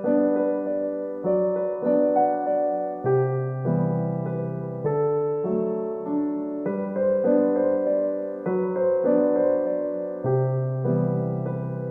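Background music: soft piano chords played slowly, each chord struck and left to ring before the next.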